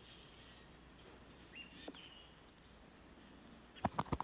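Faint outdoor ambience with scattered short, high bird chirps, some rising in pitch. A quick run of sharp, loud clicks comes near the end.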